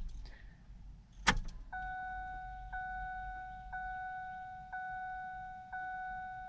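A sharp click about a second in, then a Ford Ranger's dashboard warning chime sounding a steady tone that restarts about once a second.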